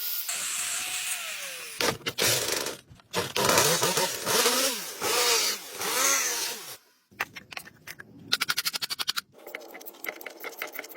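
A power tool running in bursts on metal, its pitch dipping and recovering as it is loaded. It is followed by a fast run of clicks and then a steady ticking.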